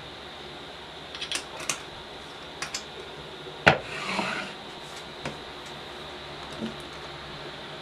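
A drink bottle being handled, with a few light clicks, then set down on a table with one sharp clink a little past halfway, followed by a brief rustle.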